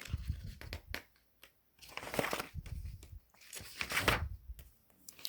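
Paper pages rustling as they are handled and flipped, with two longer swishes of turning pages about two and four seconds in and small clicks between.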